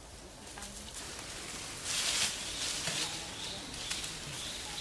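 Leaves and branches rustling in a sudden burst about two seconds in, as macaques climb and swing in the tree, over faint background voices.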